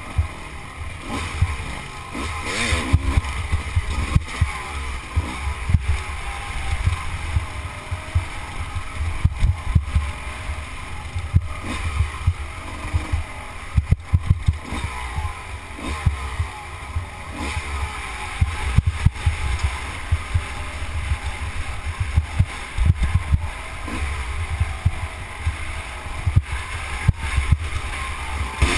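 Dirt bike engine revving up and down as the bike is ridden hard over rough, rocky ground, with heavy wind buffeting on the microphone and frequent knocks and jolts from the terrain.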